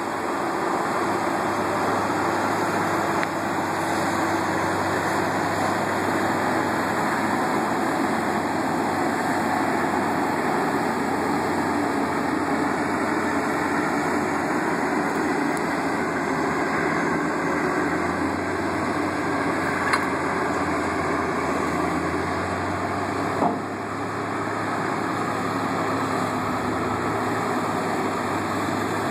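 Heavy diesel engines of a large four-wheel-drive tow tractor and the semi truck it is towing, running steadily under load as the tractor pulls the truck and its lowboy trailer with a building on it. A couple of brief knocks stand out partway through.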